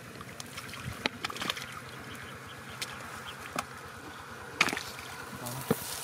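Gloved hands groping and splashing in shallow mud and water, with a few short sharp splashes and squelches. A steady buzz runs behind them.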